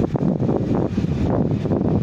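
Wind buffeting the microphone over the low rumble of an approaching diesel locomotive hauling a passenger train.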